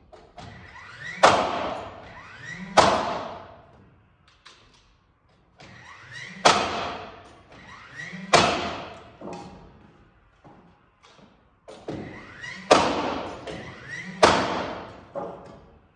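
Nail gun driving nails into the truss lumber: six sharp shots in three pairs, each pair about a second and a half apart, with a short rising whine before each shot. Each shot rings on in the arched metal building.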